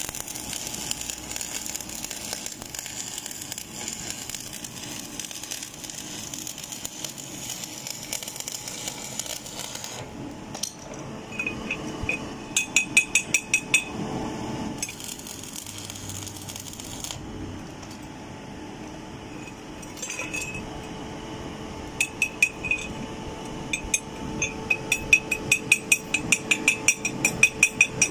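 Electric arc welding on a steel pipe-to-elbow joint gives a steady hiss for about ten seconds. After that, a chipping hammer taps the fresh weld in quick runs of ringing metallic clinks, knocking off slag. The clinks come in a short run and then a longer one near the end.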